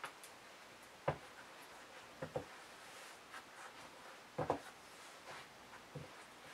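Small wooden box with metal corner trim being turned over and set down on a paper-covered table: a handful of light knocks and clicks, spaced a second or two apart.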